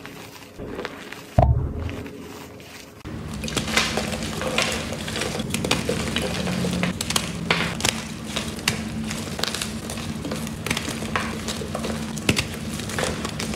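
Hands squeezing soft, powdery gym chalk in a glass bowl, with a single thump about a second and a half in. From about three seconds in, hands crush blocks of gym chalk, which crumble with a dense, crunchy crackle.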